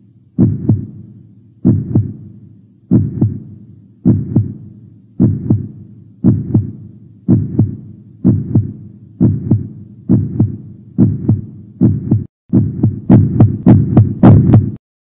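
Heartbeat sound effect: paired lub-dub thumps that quicken steadily from about one beat every 1.3 seconds to two or three a second. They grow louder and sharper near the end, then cut off suddenly.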